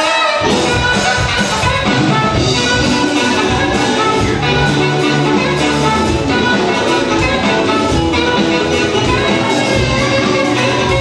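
A live band with saxophone, electric guitars and drums playing an upbeat number. The drums and low end come back in just after the start.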